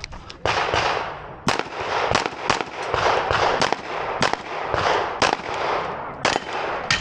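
Canik Rival 9mm pistol firing a rapid string of shots, about a dozen sharp cracks at uneven spacing, several fired in quick pairs.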